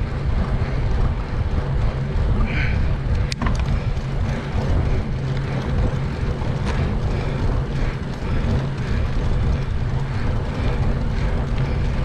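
Wind buffeting a GoPro's microphone while riding a bicycle: a steady low rumble, with one sharp click a little over three seconds in.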